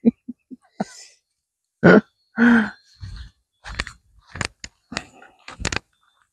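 A woman's short wordless vocal sounds, a few clipped pulses and then two drawn-out voiced sounds around two seconds in. In the second half comes a run of sharp clicks and thumps close to the microphone as she moves right past it.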